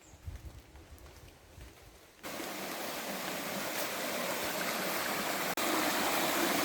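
Faint low rumbles, then about two seconds in a sudden cut to a rainforest stream rushing steadily and loudly over rocks.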